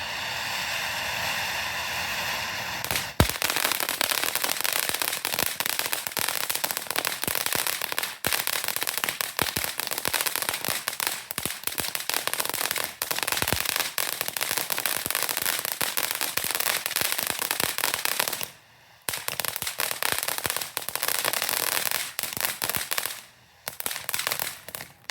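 Sky Bacon 'Old Faithful' cone fountain firework hissing steadily as it sprays sparks. About three seconds in there is a sharp crack, and from then on dense crackling runs, with two short lulls near the end.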